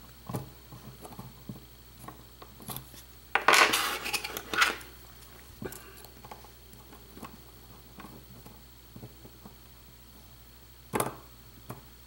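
Light clicks and scrapes of metal lock-picking tools working inside a euro-profile pin-tumbler cylinder. About three and a half seconds in comes a louder metallic rattle of tools being handled, lasting about a second, and a shorter one comes near the end.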